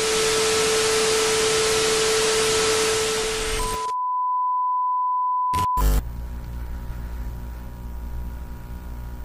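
Loud hiss of static with a steady tone under it, cutting off about four seconds in to a single clean beep that lasts about two seconds, followed by a faint low hum.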